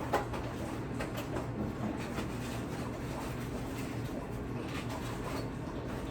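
Packaged groceries being handled and set into a refrigerator: light knocks and handling noises, the sharpest just after the start, over a steady low hum.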